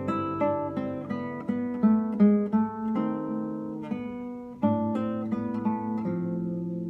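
Classical guitar played solo fingerstyle: plucked melody notes over ringing chords. A louder chord is struck about two-thirds of the way through and left to ring.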